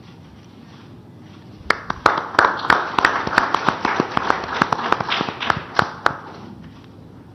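Audience applauding, starting about two seconds in and dying away after about four seconds.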